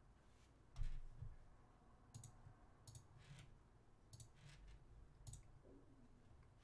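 Faint, scattered clicks of a computer mouse and keyboard, about nine taps spread over several seconds, the first the loudest, as a trade order's price and amount are entered.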